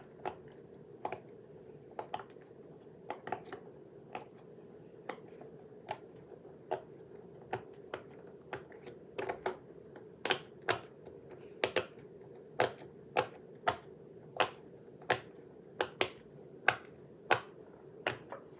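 Silicone pop-it fidget toy being pressed bubble by bubble, each bubble giving a sharp little pop, about one or two a second and louder toward the end.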